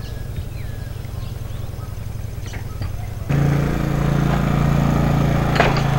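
Small step-through motorcycle engine running at low speed as it rolls forward, a low steady hum that becomes much louder from about three seconds in. Birds chirp faintly in the first half.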